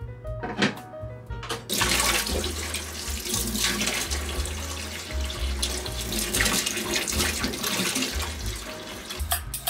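Kitchen tap running into a stainless steel sink as asparagus spears are rinsed under the stream. The water starts about two seconds in and stops near the end, with background music under it.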